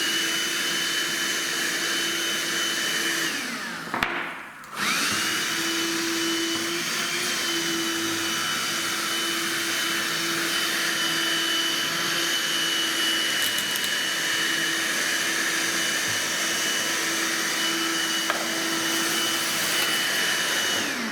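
Small vacuum cleaner running with a steady high motor whine as it sucks dust off a knitting machine. About four seconds in it is switched off and winds down, then starts up again a moment later and runs on until it is switched off near the end.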